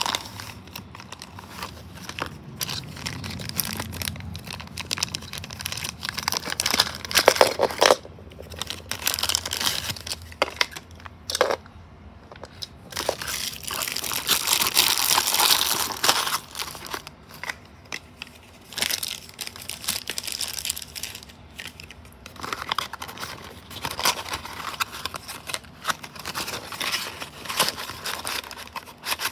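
Hands opening and handling a small cardboard toy-car box and its packaging: irregular crinkling, crushing and tearing, with occasional knocks.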